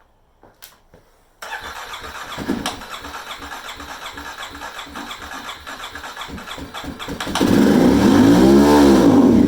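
Kawasaki KLX 250's electric starter cranking the single-cylinder engine in a steady chugging rhythm. About 7 seconds in, it grows much louder and rises then falls in pitch, as if the engine briefly fires, and it stops just after. This is a hard start after the bike has sat, which the owner puts down to ethanol fuel clogging the carburetor jets.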